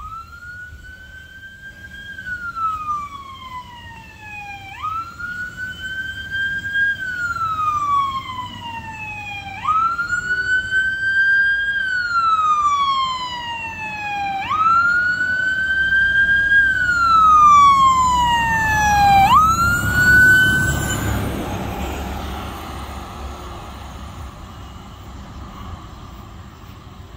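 Fire truck siren wailing, its pitch jumping up quickly and then sliding slowly down about every five seconds, growing louder as the truck approaches. About twenty seconds in the siren cuts off as the truck passes, leaving a loud engine and road rumble that fades as it drives away.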